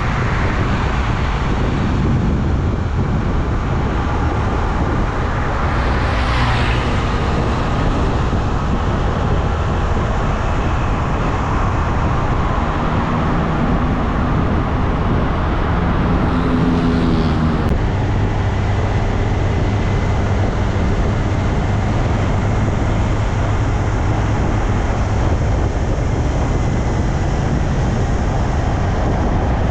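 Highway traffic noise from the roadside: the steady rush of tyres and engines from trucks and cars passing. A vehicle passes close about six seconds in, and an engine note rises in pitch for a few seconds before the sound changes abruptly near the two-thirds mark.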